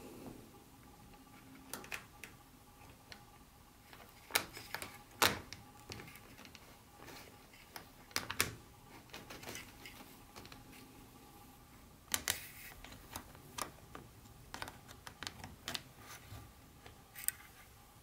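Scattered plastic clicks and light taps as an HO-scale diesel locomotive is handled and its wheels are set down onto plastic-roadbed track, irregular and strongest a few seconds in and again about halfway, over a faint steady hum.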